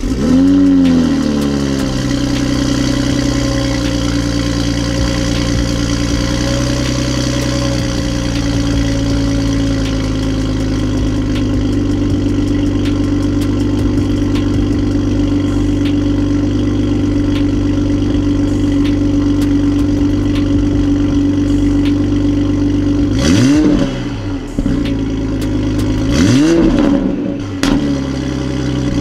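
Toyota GR Supra's turbocharged inline-six exhaust, through a catted aftermarket downpipe and the stock exhaust with its valve closed: the engine comes in with a brief flare of revs, settles into a steady idle, then is blipped twice near the end, each rev rising and falling quickly.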